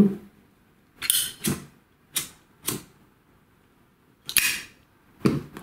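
A handheld cigarette lighter being worked to light a cigarette: a series of about six short clicks and scrapes spread over several seconds.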